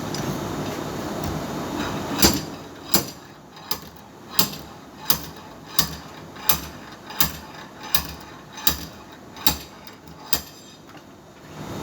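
Hammer blows, about a dozen at an even pace of roughly three every two seconds, typical of tinsmith panel work. A steady noise runs before the blows start and comes back near the end.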